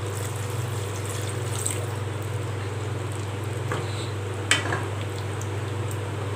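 Water pouring into a pan of simmering curry, then a wooden spatula stirring the thick gravy, with one light knock of the spatula against the pan about four and a half seconds in. A steady low hum runs underneath.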